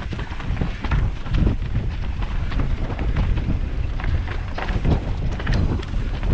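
Wind buffeting the microphone of a riding mountain bike's camera, with frequent short knocks and rattles from the bike going over rough ground.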